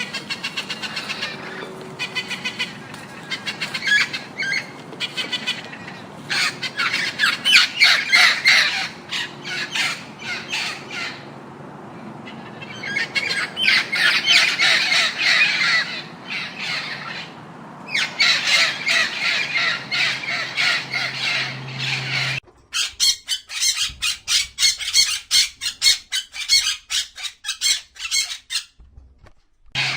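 Indian ringneck parakeet calling: bouts of rapid, harsh squawks repeated several times a second, with short pauses between bouts.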